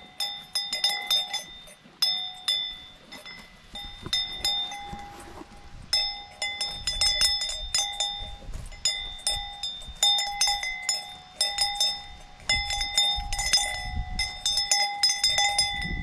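Cowbell clanking over and over at an irregular pace, the way a bell on a grazing cow's neck swings as she moves and feeds.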